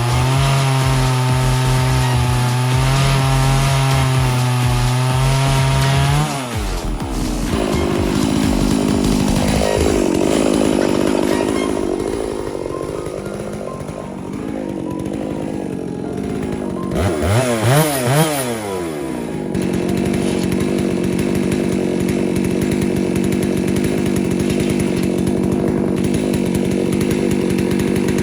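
Chainsaw cutting through sweet gum on a chainsaw mill. It holds a steady engine speed for about six seconds, then the pitch drops and wavers for a stretch, with a louder surge of changing pitch near the middle, before settling into a steady run again for the last several seconds.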